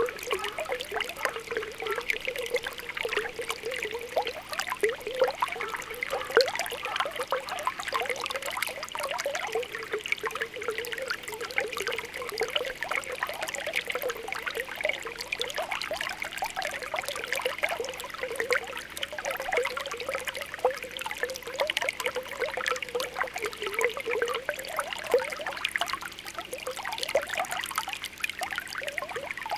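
Spring water welling up from the ground, bubbling and popping in a steady stream of small, quick blips over a continuous trickle.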